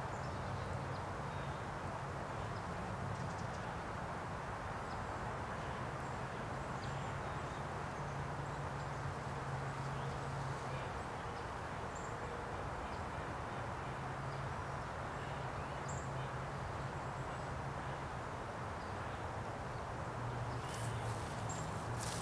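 Steady outdoor background hiss with a low hum underneath and a few faint ticks. Near the end come a few crunching footsteps on dry fallen leaves.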